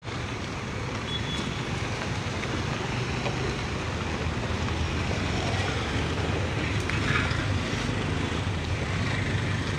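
Steady road traffic: cars, motor scooters and an auto-rickshaw driving past over a broken, gravelly road, with a continuous low engine and tyre rumble.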